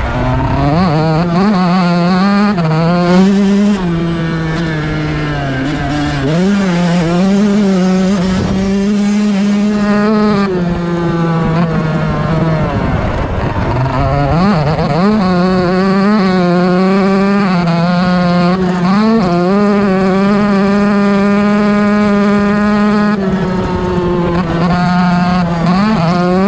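Stock Yamaha YZ125 single-cylinder two-stroke dirt bike engine at speed, revving high. Its pitch dips and climbs back several times between long stretches held at steady high revs.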